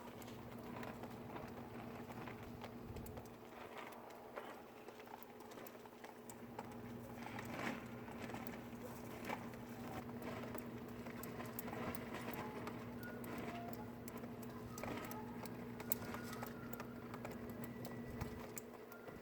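A faint, steady, horn-like drone of unknown origin, heard in the open air and holding one low pitch until it stops shortly before the end. Scattered small ticks of dripping meltwater run alongside it.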